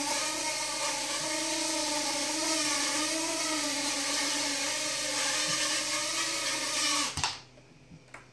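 Small multirotor drone's motors and propellers whining, the pitch wavering slightly as it is flown. About seven seconds in the drone comes down with a thump and the motors cut off, followed by a single light click about a second later.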